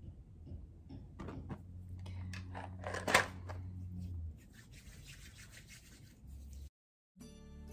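Hands rubbing and rustling, with one louder scrape or swish about three seconds in. Softer rubbing follows, and after a brief cut soft background music begins near the end.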